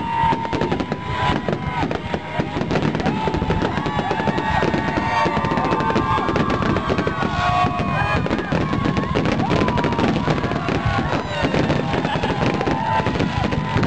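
Aerial fireworks going off in a dense, continuous barrage of crackling and bursts, with pitched tones that rise and fall over it.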